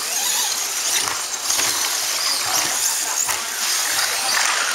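Several electric RC off-road trucks racing, their motors whining high and gliding up and down in pitch as they speed up and slow down.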